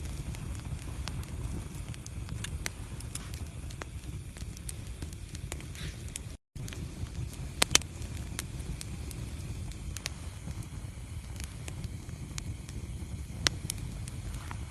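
Wood fire burning in a fireplace: a steady low rumble of flame with scattered crackles and pops, including two sharp pops close together past the middle and another near the end. The sound cuts out for a split second about six seconds in.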